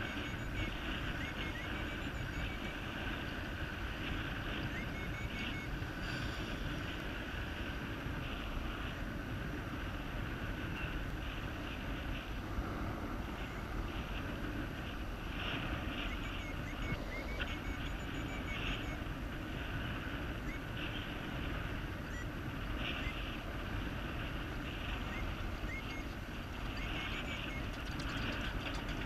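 Wind rushing and buffeting over the microphone, a steady low rush, with faint short high chirps scattered through it.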